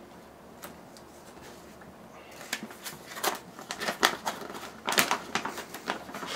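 A large folded paper sheet being handled and unfolded: quiet at first, then from about two seconds in a run of crisp, irregular crinkling and rustling.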